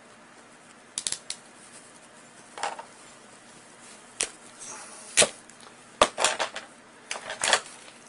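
Irregular sharp clicks and clacks of a ratcheting coax crimp tool being squeezed and handled, crimping the ferrule of a PL-259 connector onto the coax. About a dozen separate clicks, some in quick clusters.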